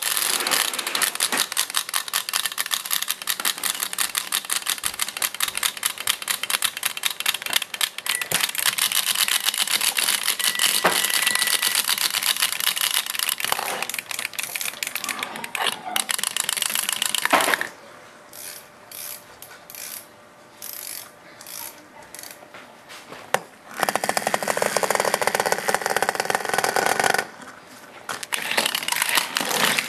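Clockwork motors of small plastic wind-up hopping toys running down, a fast, even clicking. The clicking stops a little over halfway through, leaving scattered faint ticks, then runs again for a few seconds and once more near the end.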